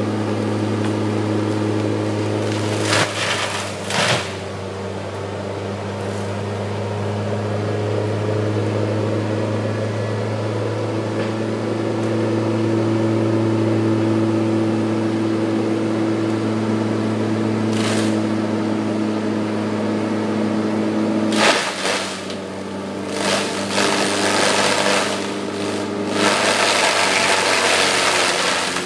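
John Deere 200C excavator's diesel engine running steadily to drive its grinding head, with bursts of crackling and splintering wood as the head chews into a standing red oak trunk. There are two short bursts about three and four seconds in and another near eighteen seconds. Heavier, near-continuous grinding follows over the last seven seconds as sawdust sprays.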